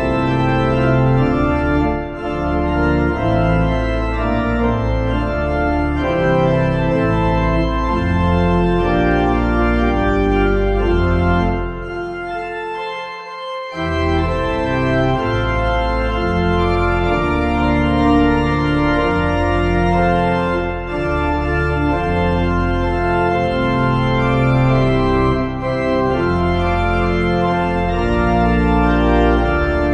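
Organ music: slow sustained chords with a strong bass, changing every second or two, with a brief pause about twelve seconds in.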